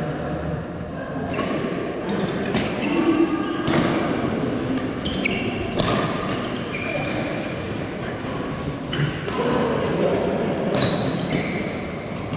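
Badminton rally: sharp racket strikes on a shuttlecock every second or two, with short high shoe squeaks on the court floor and background voices echoing in a large sports hall.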